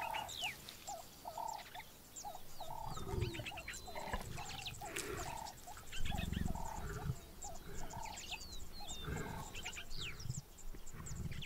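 Wild bird sounds: a short call repeated about twice a second, with higher chirps and whistles over it. A few low rumbles come in about 3, 6 and 9 seconds in.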